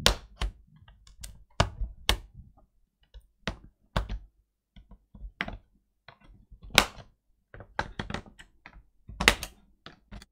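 Plastic clips of an HP Pavilion laptop's case snapping loose one after another as a metal prying tool works along the seam between top and bottom case: about a dozen sharp, irregular clicks, the loudest a little under seven seconds in. Each click is a clip releasing as the case pops apart.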